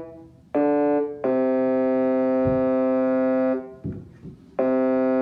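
Electronic keyboard playing the Colorado Avalanche goal horn as held, organ-like chords that do not fade: a short chord, then a long one of about two seconds, a pause, and another long chord.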